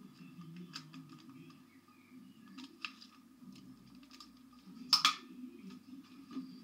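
Thin clear plastic chocolate tray clicking and crackling as it is handled, with a loud plastic clack about five seconds in as it is set down on the table.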